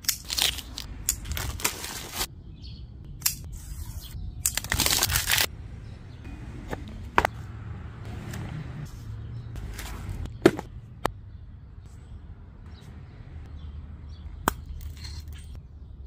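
Handling noises of knives and their cardboard box: scattered sharp clicks and taps, with a scraping rustle lasting about a second around four and a half seconds in, and single crisp ticks later on.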